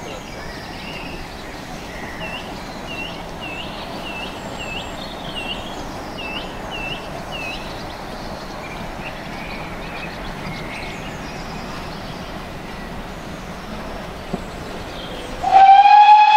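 A bird sings a run of short repeated notes over a low, steady rumble of an approaching train. Near the end a steam locomotive's whistle starts, loud and held on one note.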